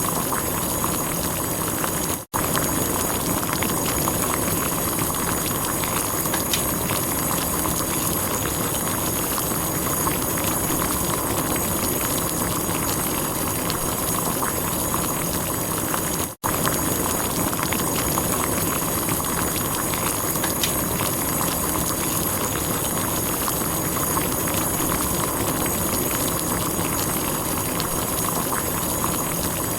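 Water at a steady boil, bubbling and popping continuously. The sound cuts out for an instant twice, about two seconds in and again about halfway.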